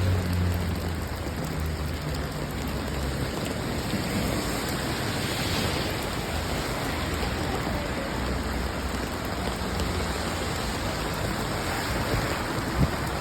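Steady rain falling, an even hiss throughout, with a low rumble that comes and goes underneath and a single sharp tick near the end.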